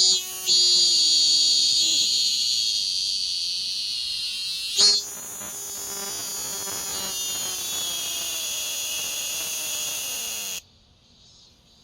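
Cicada singing at close range: a loud, continuous high buzz with a brief surge about five seconds in, which stops abruptly near the end.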